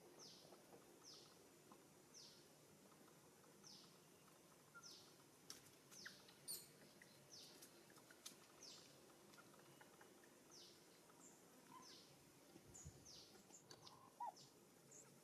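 Faint bird calling: a short, high chirp that falls in pitch, repeated about once a second over quiet outdoor background.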